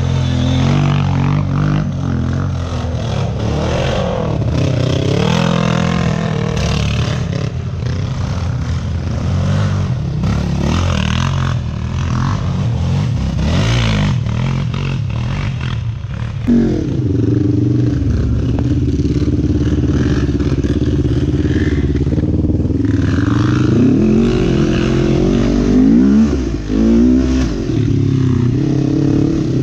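Sport quad (ATV) engine running under way, its pitch rising and falling with the throttle several times. About sixteen seconds in it jumps suddenly to a higher, louder note.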